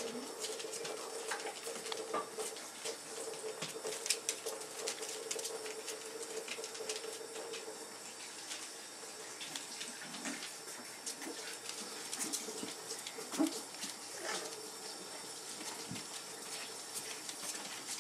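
Bullmastiff puppies moving about on blanket and bedding, with scattered short whimpers and squeaks and light scuffling clicks. A faint steady hum runs through the first half, fading about eight seconds in.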